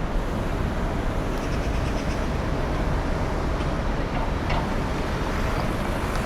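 Busy city street ambience: a steady rumble of traffic, with a few faint clicks about one and a half and four and a half seconds in.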